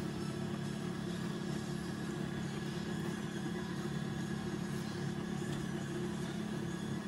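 A steady low machine hum that holds unchanged throughout, with no knocks or breaks.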